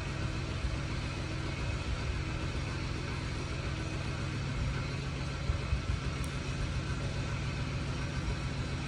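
Steady low mechanical hum, even throughout.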